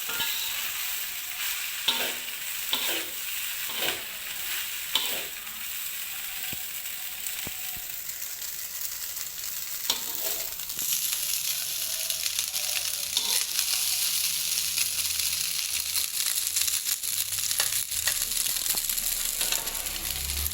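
Fried rice sizzling as it is stir-fried in a pan, with spatula strokes against the pan about once a second at first. The sizzle grows louder about halfway through.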